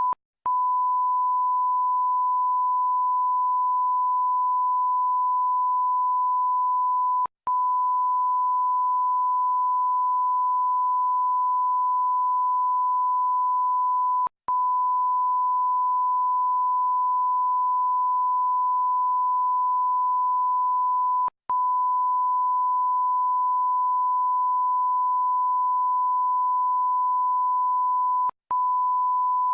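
A steady, pure electronic bleep tone, the classic censor-bleep sound effect. It drops out briefly about every seven seconds and resumes at once.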